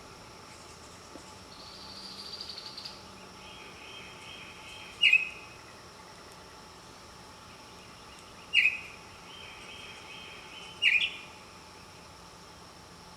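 Bird calls: a fast trill, then a rattling series, then three loud, sharp calls a few seconds apart, over a faint steady background hum.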